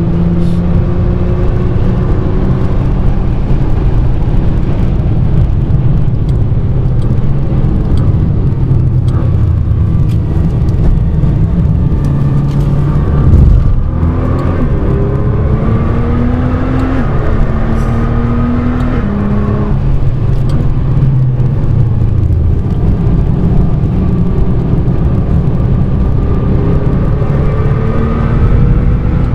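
Nissan GT-R R35's twin-turbo V6 with a Nismo titanium exhaust, heard from inside the cabin at track speed over heavy road rumble. The engine pulls with a rising note, falls away with a brief loud knock as the car slows about halfway through, then climbs again in a series of quick upshifts, each a short rising note cut off by a drop in pitch.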